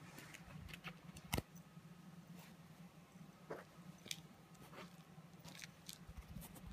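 Faint scattered clicks and soft rustles of a kitten biting and chewing a small toy ball, over a low steady hum; one sharper click about a second and a half in.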